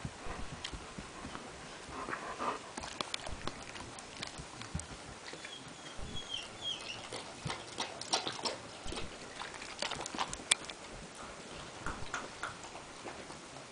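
A small pet moving about and playing, making scattered light taps and knocks. A short, high, wavering squeak comes about six seconds in.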